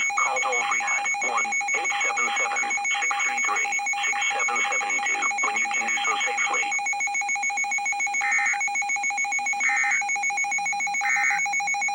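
Emergency Alert System broadcast audio: a steady two-pitch alert tone runs throughout. A warbling, voice-like sound lies over it for about the first seven seconds. Then three short bursts of digital data tones follow about a second and a half apart, the EAS end-of-message code that closes the alert.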